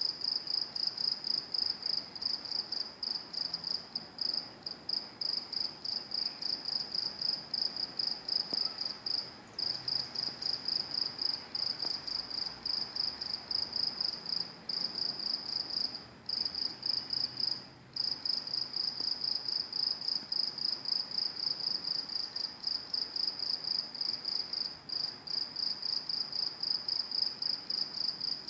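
Crickets chirping: a high-pitched, fast, even pulsing trill that breaks off briefly a few times, about a third of the way in and just past halfway.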